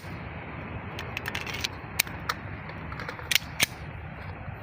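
Scattered sharp metallic clicks and clacks from a 30 bore (7.62×25 mm) pistol being handled between single and burst fire. There is a small cluster of clicks about a second in and two louder clacks a little after three seconds.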